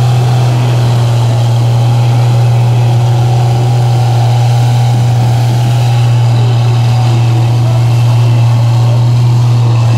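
Mud bog pickup truck's engine running hard at a steady, unchanging pitch as the truck churns slowly through deep mud, with crowd voices faint underneath.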